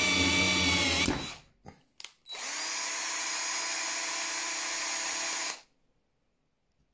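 Battery drill driving a rivet adapter: it runs, then stops about a second in, its pitch falling slightly just before. Two short clicks follow, then the drill runs again steadily and a little more quietly for about three seconds and cuts off.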